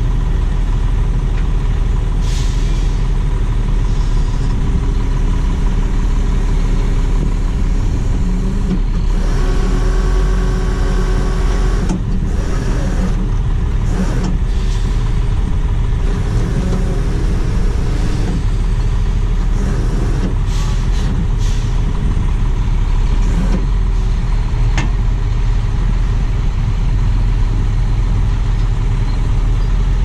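A heavy-duty rotator tow truck's diesel engine running steadily under load, driving the hydraulic winch on a recovery cable. A brief whine rises out of it for a couple of seconds about a third of the way in.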